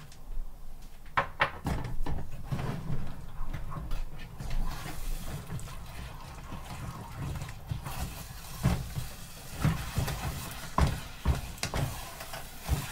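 A wooden spoon stirring barley-flour batter into hot milk and water in a saucepan, knocking against the pan at irregular moments as the porridge is mixed. It begins with the batter being poured in from a bowl.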